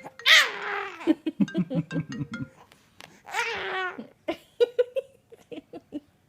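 A young child shrieks with delight in a high squeal that falls in pitch, then laughs in quick pulses while the iPhone 5s ringtone's chiming notes play on faintly beneath. A second falling squeal comes about three seconds in, followed by short bursts of babbling giggles.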